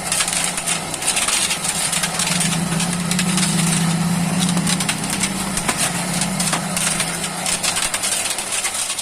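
Motor-driven plate-cutting machine running as it cuts silicon steel sheet for a toroidal transformer core: a steady motor hum under a dense crackle of many small clicks.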